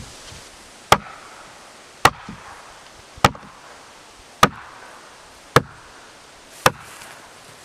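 A long-handled hammer strikes a wooden block on a plywood floor six times, evenly, about once a second, knocking a plywood floor sheet tight into place.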